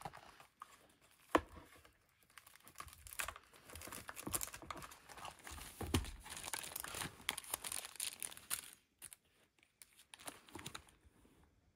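Rustling and crinkling of plastic as sheets of adhesive rhinestone and pearl embellishments are shuffled through in a clear plastic storage box, with scattered clicks and knocks, the sharpest click about a second and a half in.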